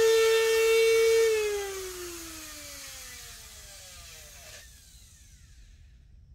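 Harbor Freight handheld rotary tool running at a steady high whine, then let go about a second in and spinning down, its pitch falling over about three seconds until it stops.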